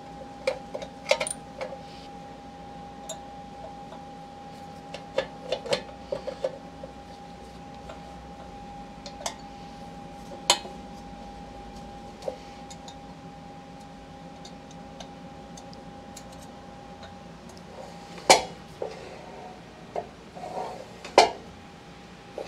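Scattered metallic clinks and taps from bolting a sheet-metal chuck guard onto a CNC lathe's spindle face, with a few louder knocks, two of them near the end, over a steady faint hum.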